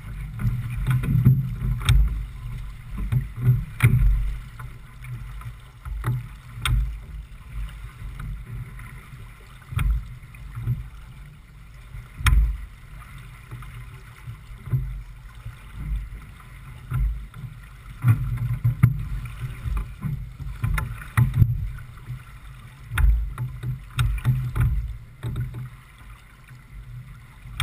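J/24 keelboat sailing through chop: water rushing along the hull and uneven low rumbling gusts of wind on the microphone, with a few sharp knocks.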